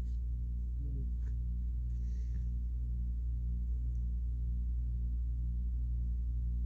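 Steady low hum with a few even tones under it, holding unchanged, with a faint brief hiss about two seconds in.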